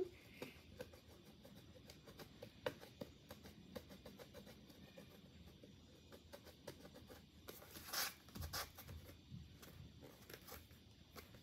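Faint handling noise: small clicks and rubbing as a plastic roller water bottle is turned and fiddled with in the hands, with a louder scrape about eight seconds in.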